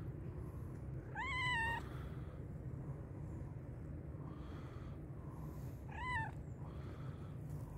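Black-and-white stray cat meowing twice: a longer meow about a second in and a shorter one about six seconds in, with fainter calls between. The meowing is that of a hungry cat asking for food.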